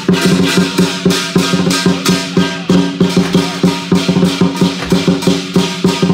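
Southern (Cantonese) lion dance percussion: a large drum with gong and cymbals striking a fast, steady rhythm of about four beats a second.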